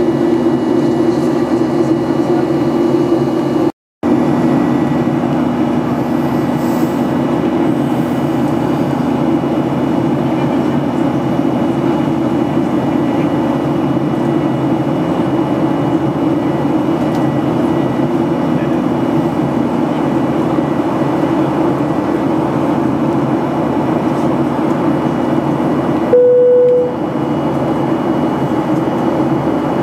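Steady cabin drone of a Boeing 737-800 in flight, its CFM56 jet engines and the airflow running evenly, with the sound cutting out for a moment about four seconds in. Near the end a short single-tone chime sounds, the cabin's PA chime ahead of an announcement.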